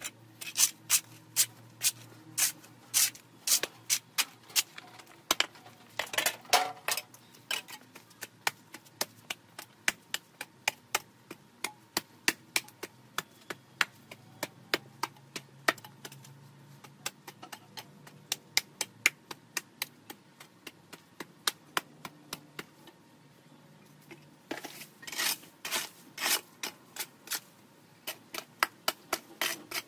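Long-handled garden tool striking and scraping dirt and debris off a concrete path: repeated sharp strokes at about two a second, with a brief pause about three-quarters of the way through.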